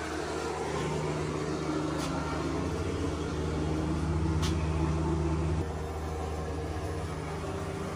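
A steady, low mechanical hum made of several fixed tones, which drops in level about five and a half seconds in. A couple of faint clicks sound over it.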